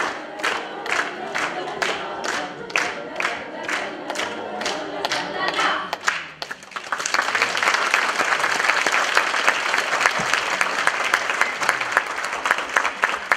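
A children's choir singing with steady clapping in time, about two claps a second; the song ends about six seconds in and applause breaks out and carries on.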